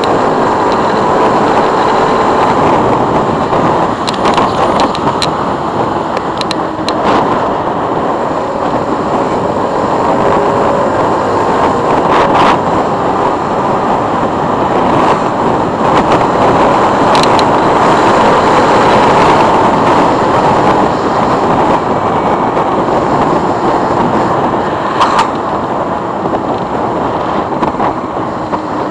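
Motorcycle riding at road speed: a steady rush of engine, wind and road noise, with a few short knocks.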